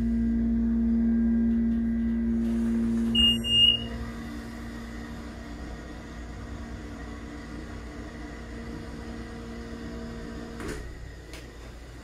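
Hydraulic elevator's pump motor humming steadily as the car rises. About three seconds in, a short, very loud electronic floor-passing chime sounds. The hum then runs on more quietly and stops with a clunk shortly before the end, followed by a couple of clicks.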